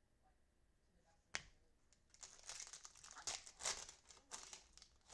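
A sharp tap about a second and a half in, then a trading-card pack's wrapper being torn open and crinkled for about three seconds.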